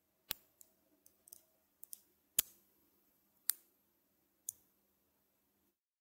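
Small neodymium magnet balls snapping together between the fingers: about ten sharp, irregular clicks, the loudest about two and a half and three and a half seconds in.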